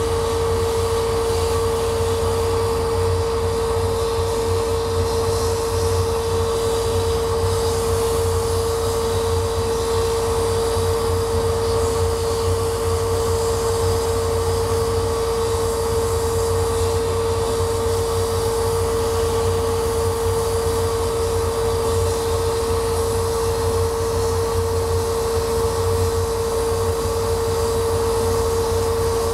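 Laser cutter running as it cuts a wooden sheet: a steady mechanical hum with one strong, steady mid-pitched tone over it.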